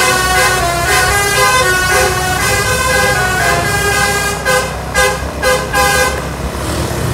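Basuri 'telolet' bus horn, a multi-tone horn, playing a tune of overlapping held notes. About two-thirds of the way in it breaks into several short blasts.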